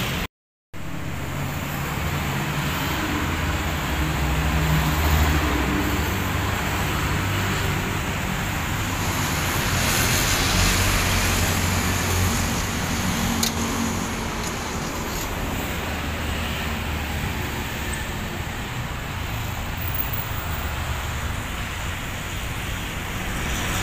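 Road traffic: a steady rumble of passing engines and tyres that swells and eases as vehicles go by, dropping out briefly right at the start.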